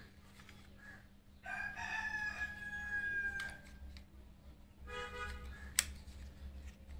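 A rooster crowing: one long call of about two seconds with a slightly falling pitch, then a shorter call about a second and a half later. A single sharp click follows shortly after.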